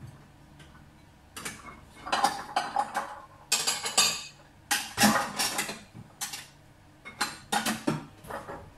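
Dishes clattering and clinking as a plate is pulled out from among others: a run of irregular knocks and rattles starting about a second and a half in, the loudest about five seconds in.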